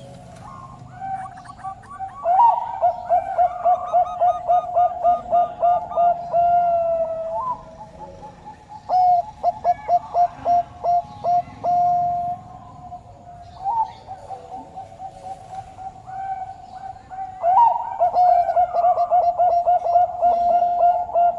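Zebra dove of the Bangkok song-dove type cooing. Four phrases, each a quick run of staccato notes that runs into a drawn-out coo, with faint higher chirps of small birds behind.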